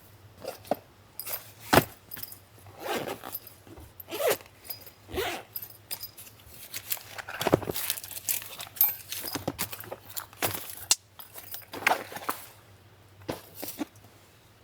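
Irregular clinks, clicks and rustles of small objects being handled, one after another.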